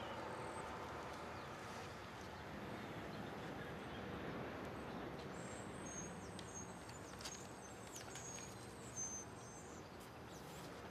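Faint outdoor background noise, with a small bird chirping high and thin for a few seconds around the middle.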